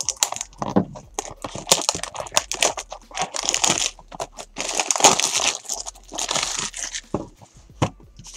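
Clear plastic shrink-wrap being torn and crumpled off a cardboard retail box of trading cards: irregular crinkling and crackling, with a few sharp clicks near the end.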